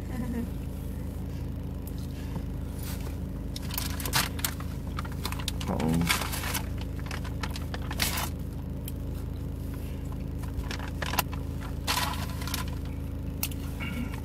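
Crinkling and rustling of a plastic snack bag in short bursts, over a steady low hum inside a car's cabin.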